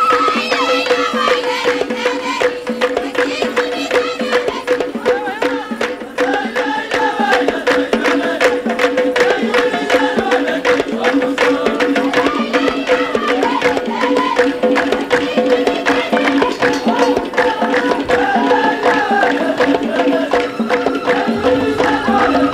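Moroccan folk music: dense, rapid hand-drum percussion over a steady held drone, with a wavering, ornamented melody line above it.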